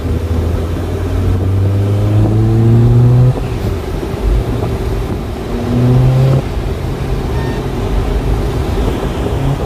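A Suzuki car's engine, heard from inside the cabin, rising in pitch as the car accelerates. The note falls away abruptly about three seconds in, rises again, and drops off once more around six and a half seconds in. Steady road noise runs underneath.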